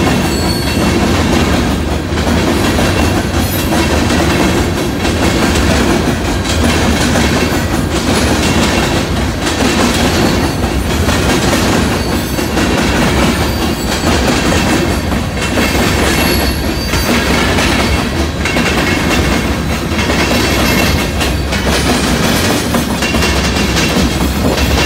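Loaded freight train hopper cars rolling past a grade crossing: a steady rumble and rail roar with repeated clacks of wheels over rail joints. Near the end, mid-train diesel locomotives arrive and add a deeper engine drone.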